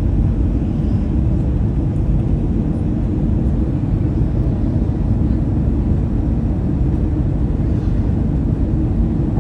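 Airliner cabin noise on the descent to landing: the steady low rumble of the engines and rushing airflow, heard from inside the passenger cabin.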